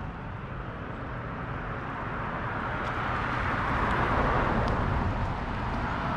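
A car on the road driving past, its tyre and road noise swelling and then easing off.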